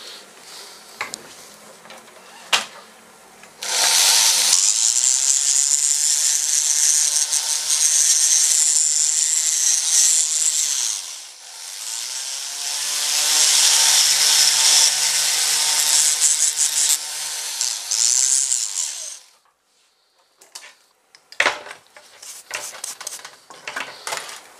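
Handheld rotary tool grinding a shallow groove into a speargun's grip, running loud for about fifteen seconds with a brief easing near the middle, then stopping. A few light taps and scrapes follow near the end.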